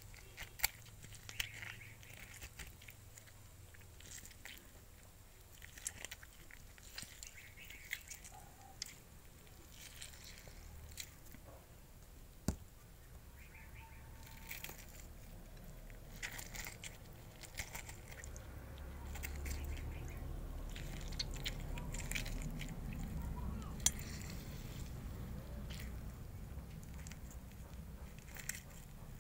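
Faint, scattered crackles and clicks of a lemon being squeezed by hand over a bowl of cut green chillies. A low rumble comes up in the second half.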